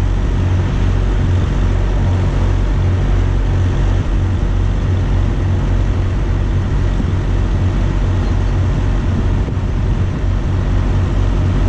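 Steady, loud low rumble with an even hiss over it, with no distinct events.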